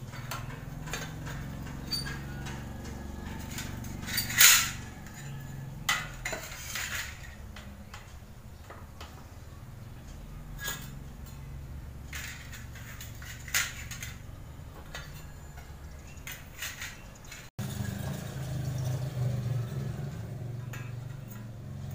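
Cut strips of light sheet steel clinking and clattering against a steel bicycle rim and a tile floor as they are handled and laid in place as turbine blades. Scattered sharp metallic clinks, the loudest about four seconds in.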